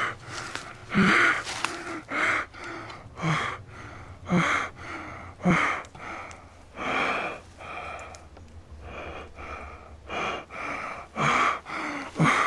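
A person breathing hard and laboured, one loud gasping breath about once a second, each with a rough, strained catch in the voice.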